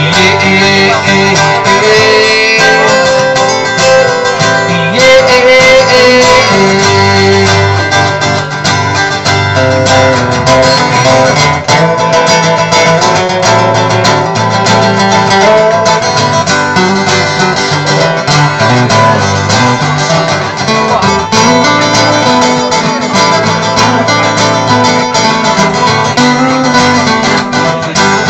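Two guitars played live, the acoustic guitar strumming under a moving melody line, in an instrumental passage of the song.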